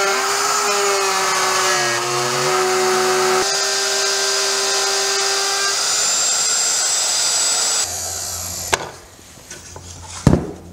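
Porter-Cable plunge router with a 1/2-inch straight bit running at full speed with a steady whine as it cuts a dado into a board. About eight seconds in it is switched off and spins down, followed near the end by a few knocks as the tool is set down.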